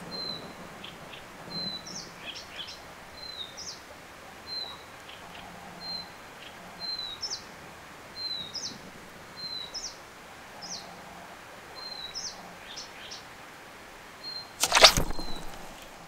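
A bird calling over and over: a short high note repeated about once a second, with quick rising chirps in between. A loud brief thump or rustle comes near the end.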